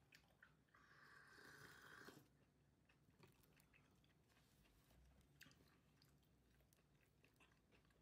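Faint sounds of biting into and chewing soft homemade bread with a cheese filling. A soft noise lasts about a second and a half near the start, followed by scattered small mouth clicks of chewing.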